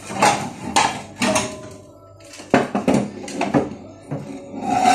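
Irregular knocks, clinks and scrapes of hard objects against tile and each other during floor scrubbing, about ten short strikes, a few with a brief ring.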